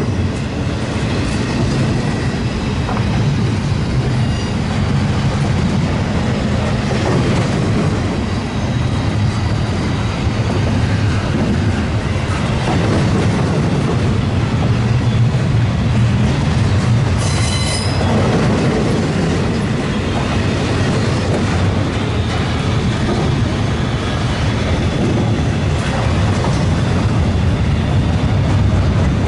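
Freight train cars rolling past: a steady rumble of wheels on rail with occasional clacks, and a brief high wheel squeal a little past halfway through.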